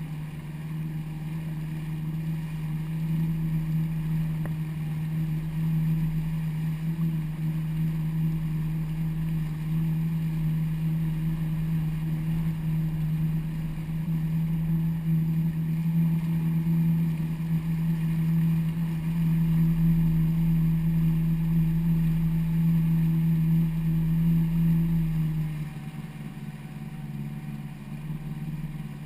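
Yamaha WaveRunner jet ski engine running steadily at cruising speed, a steady hum with a strong low note. About 25 seconds in it drops to a lower, quieter note as the throttle eases off.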